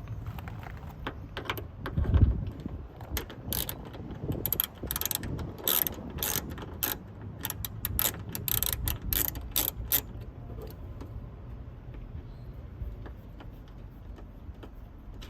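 Ratchet wrench with a T30 Torx bit clicking in irregular runs as door screws are worked loose, with a low thump about two seconds in.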